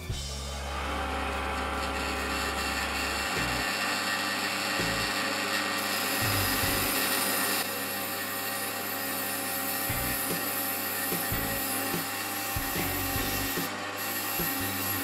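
Drill press spinning a buffing wheel while a curved metal part is pressed against it: a steady rubbing, scouring hiss over the running motor, brightest around six to seven and a half seconds in.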